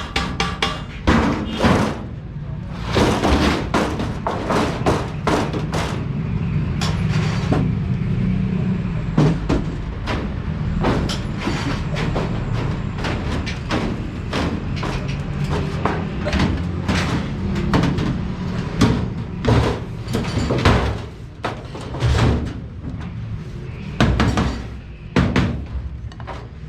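Irregular metallic bangs and knocks of sheet metal being struck and handled, over steady background music.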